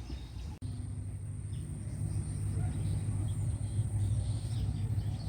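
A steady low rumble, with a faint steady high-pitched whine and a few faint bird chirps over it. The rumble breaks off for an instant about half a second in.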